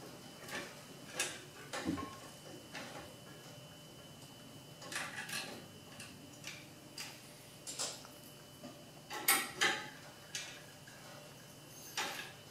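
3 mm hex key turning out the hex screws that hold an espresso machine's main circuit board: scattered light metallic clicks and ticks of the key and screws against the steel frame, a few louder ones in the second half.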